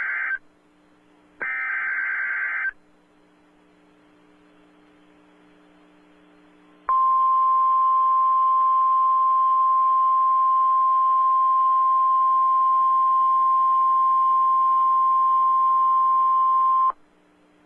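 Emergency Alert System severe thunderstorm warning signal. A SAME header data burst, a harsh buzzy screech, ends just after the start, and another lasting about a second comes about a second and a half in. After a pause of about four seconds, the National Weather Service warning alarm tone sounds: one steady high beep held for about ten seconds that cuts off sharply.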